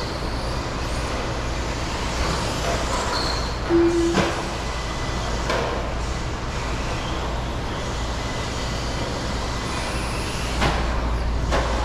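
Radio-controlled stadium trucks racing on an indoor dirt track: a steady rush of motor and tyre noise with a low hum, broken by a few sharp knocks and a short tone a little under four seconds in.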